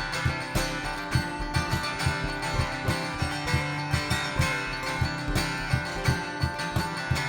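Guitar strummed in a steady rhythm, with no singing.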